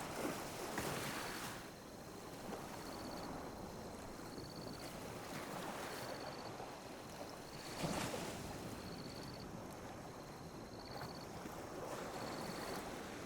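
Small sea waves lapping and washing on a beach, in uneven surges with the biggest wash about eight seconds in.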